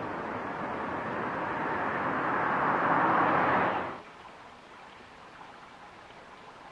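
Steady rush of flowing water from a steaming hot-spring stream, growing louder, then cutting off abruptly about four seconds in, leaving a faint quiet background.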